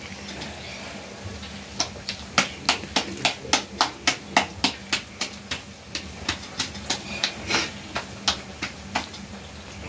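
Hands patting a ball of puri dough back and forth between the palms to flatten it. A run of sharp slaps, about three or four a second, starts about two seconds in and stops near the end.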